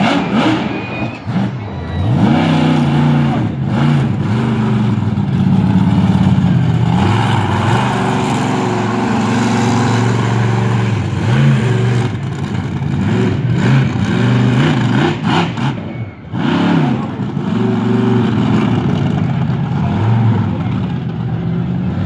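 The Raminator monster truck's engine revving hard, its pitch climbing and falling over and over as the truck drives onto and over the cars. The revs drop sharply about a second in and again near the 16-second mark before the engine picks up again.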